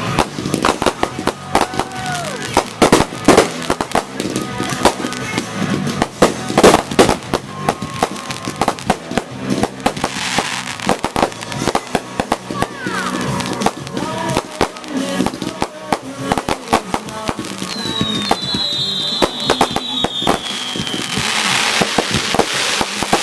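Aerial fireworks bursting overhead in a rapid, dense run of bangs and crackling. The loudest bangs come in the first seven seconds.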